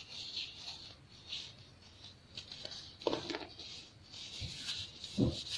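Chunks of pressed baking soda crumbling between fingers and the powder sifting down onto a heap: a soft, crackly patter, with firmer crunches about three seconds in and near the end.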